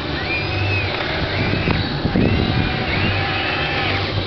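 Hobby Engine RC excavator's small electric motors whining in short bursts as the arm and bucket move: each whine rises in pitch, holds and falls away, about one a second. A steady low hum runs underneath.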